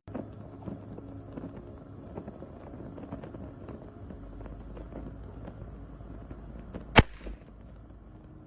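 Scattered small clicks and knocks over a low hum, then one loud, sharp crack about seven seconds in.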